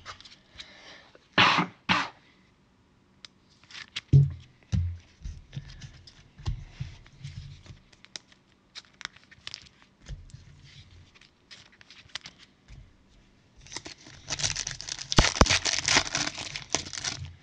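Foil wrapper of a Mosaic Fast Break basketball card pack being torn open and crinkled for about three seconds near the end. Before that, scattered light knocks and rustles of handling, with two short bursts of noise about a second and a half in and a thump about four seconds in.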